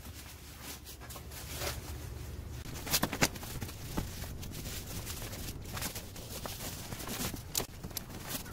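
Camping gear being handled in a pickup truck's plastic bed liner: a foam mat and folding mattress rustling and knocking as they are laid down, then a sleeping bag pulled out. A few sharp knocks, two close together about three seconds in and another about a second later.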